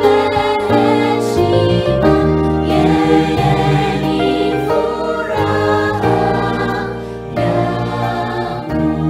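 A mixed school choir of boys and girls singing a gospel song in parts, with several voices holding notes together.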